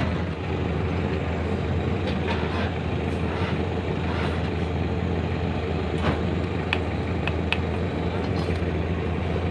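A steady low engine drone, like a vehicle idling close by, runs underneath. Several light metallic clicks come about six to seven and a half seconds in, as the wire and tools on the solenoid are handled.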